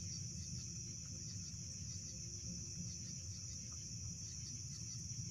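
Steady high-pitched chorus of night insects trilling continuously, over a low rumble.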